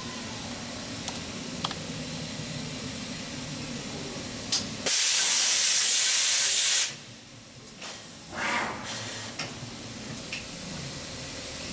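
Compressed air hissing on a Cincinnati Milacron Arrow 1250 vertical machining center: a loud blast of about two seconds starts about five seconds in and cuts off sharply, and a shorter, softer hiss follows a moment later. A few clicks sound around them, over a steady machine hum.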